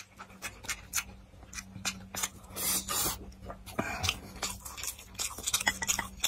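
Close-up mouth sounds of eating glass noodles and braised pork ribs: wet chewing clicks and smacks, with a short slurp of noodles about two and a half seconds in.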